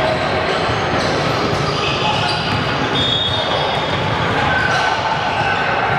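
Basketball being bounced on a hardwood gym floor, echoing in a large hall, over a steady background of voices and a few brief high squeaks.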